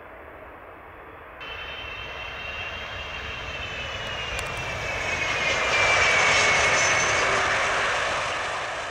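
Twin-engine Airbus A330 airliner's jet engines running as it lands and rolls past, with a whine that slowly falls in pitch. The sound steps up abruptly about a second and a half in, grows to its loudest around six seconds in, then fades.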